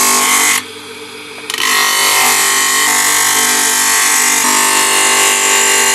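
Wood being ground on a coarse 24-grit sanding disc driven by a bench electric motor, a loud steady rasping hiss over the motor's hum. About half a second in, the wood comes off the disc and only the motor's hum is left; the grinding starts again about a second and a half in.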